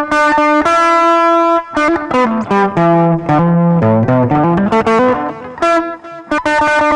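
Electric guitar played through a Boss GT-1 multi-effects processor on its country picking preset: picked single notes, some held, with a slide down the neck and back up in the middle.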